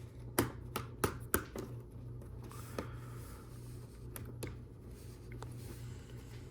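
Plastic Lego Technic parts clicking and tapping as they are handled and fitted together: a quick run of about five sharp clicks in the first second and a half, then a few fainter scattered ones.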